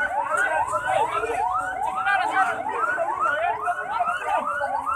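Emergency vehicle siren wailing in fast, evenly repeating rising sweeps, about two a second, with more than one siren overlapping, over the voices of a crowd.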